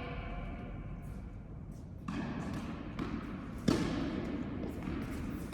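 Tennis ball impacts echoing in an indoor court: a few sharp thuds starting about two seconds in, the loudest a little past halfway.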